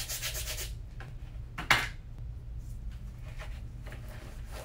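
Brisk, even scrubbing strokes on a sneaker's rubber sole, about seven a second, stopping just under a second in. A single sharp knock follows a little later and is the loudest sound, then faint softer rubbing as a cloth wipes the sole.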